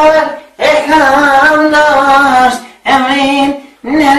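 A woman's voice singing long held notes with a wavering pitch, in short phrases with brief pauses between them and nothing else under them.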